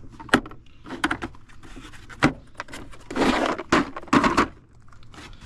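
Tool cases and tools being handled and set down: a handful of sharp knocks, with a short rattle about three seconds in.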